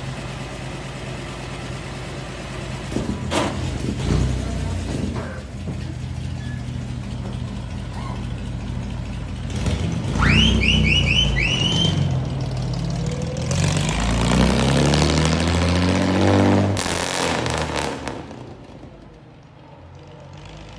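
A 1950 Chevrolet Bel Air's engine runs at a steady idle. About ten seconds in there is a quick run of five rising chirps. Then the engine revs up, its pitch rising, as the car pulls away, and it fades after about eighteen seconds.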